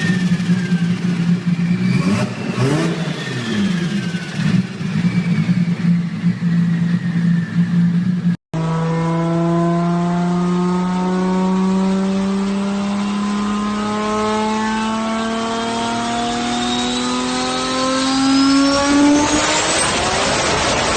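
Turbocharged car engines. In the first clip the engine runs at a nearly steady pitch. After an abrupt cut, a second engine pulls steadily up in pitch, and a turbo whistle climbs sharply over it near the end.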